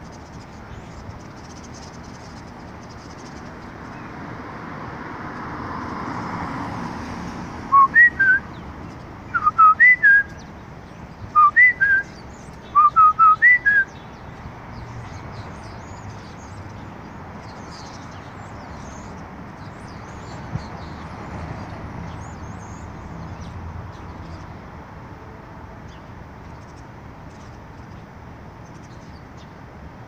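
A person whistling four quick runs of short notes that jump between a lower and a higher pitch, about eight to fourteen seconds in, whistled to perched birds to coax them into singing. Faint bird chirps are heard in the background.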